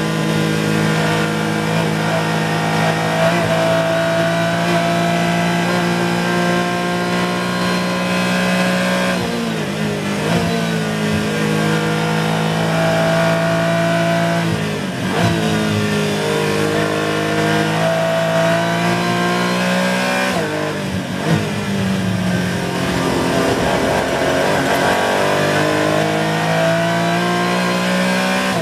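Porsche 718 Cayman GT4 race car's naturally aspirated flat-six engine, heard from the cockpit, running hard at high revs. Its pitch drops three times, about ten, fifteen and twenty-one seconds in, as the car slows and shifts down, then climbs again as it accelerates.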